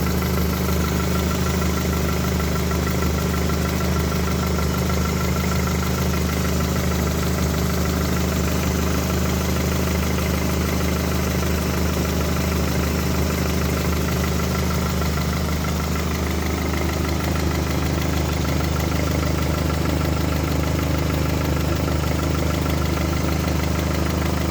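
1998 Honda Accord EX-R engine idling steadily, carrying a strange noise that the owner cannot place. The tone shifts slightly about two thirds of the way through.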